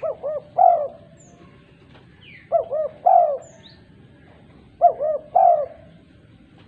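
Female spotted dove (tekukur) cooing to call other doves: three phrases about two seconds apart, each two short notes and a longer third coo.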